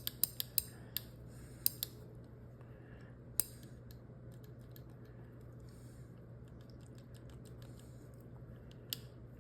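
Light metallic clicks and taps of small steel revolver parts as the hammer of a Smith & Wesson Model 34-1 .22 revolver is worked up and out of its frame, which is a little tight. Several quick clicks in the first two seconds, a sharper one about three and a half seconds in, and a couple more near the end, over a low steady hum.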